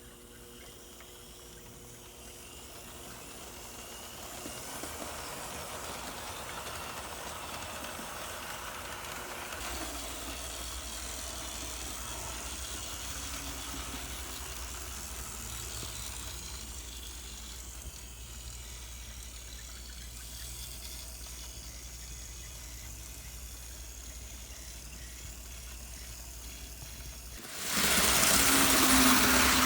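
TYCO HO-scale GP-20 model locomotive's 'Green Thing' motor running on a test run after repairs, a steady mechanical whir with hiss. It builds up over the first few seconds and gets suddenly much louder near the end.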